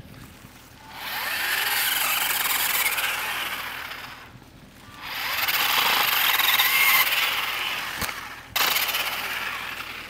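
Battery-powered 40-volt pole saw running in three spells of a few seconds each, its chain cutting through small tree limbs. A short knock comes near the last spell.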